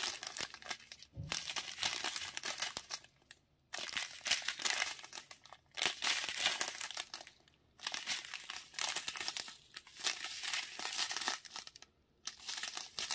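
Strip of thin plastic drill bags crinkling as it is handled and shifted in the hands, in several spells of a second or two with brief pauses between.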